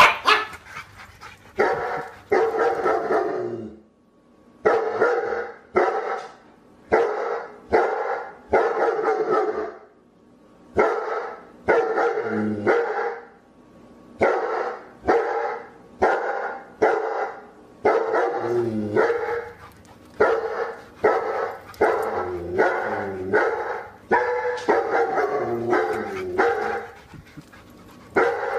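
A dog barking over and over in runs of barks, roughly one or two a second, with short pauses between the runs.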